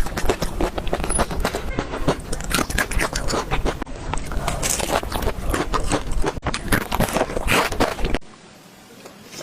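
Close-miked eating of a hotdog: dense, crackly biting and chewing sounds. About eight seconds in they cut off suddenly, leaving only faint soft ticking chews.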